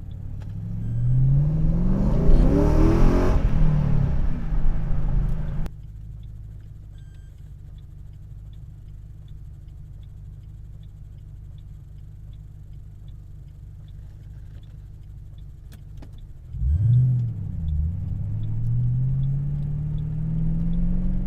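Car engine revving up as the car accelerates, its pitch climbing over a few seconds. The sound then cuts abruptly to the engine running steadily at low revs, and revs rise again about seventeen seconds in.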